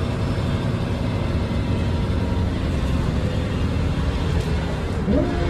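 A 2001 MAN 12.220 bus with a Custom Coaches CB30 body under way, heard from inside the passenger cabin: a steady engine drone mixed with road and tyre noise.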